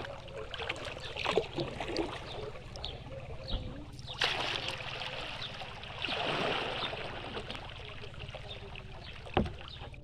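Kayak paddle strokes in calm water: the blades dip and pull with splashes, and water trickles and drips off them. There is a dull knock near the end.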